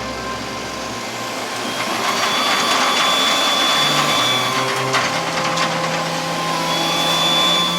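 Heavy diesel truck engine revving hard and straining under load as it tries to pull a stuck, loaded cement mixer truck free. The noise swells about a second and a half in and stays loud to near the end.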